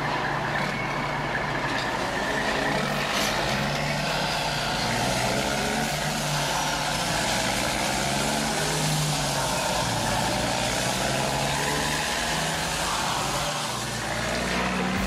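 Radio-controlled model excavator working in sand: a steady mechanical whirr from its motors and gearing, wavering in pitch as the boom and bucket move.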